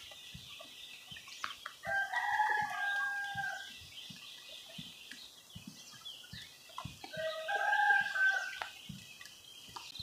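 A rooster crowing twice, each crow about a second and a half long, with faint irregular ticks underneath.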